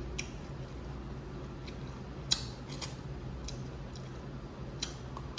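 Dungeness crab shell being cracked and picked apart: a few sharp, scattered cracks and clicks, the loudest about two seconds in, over a steady low hum.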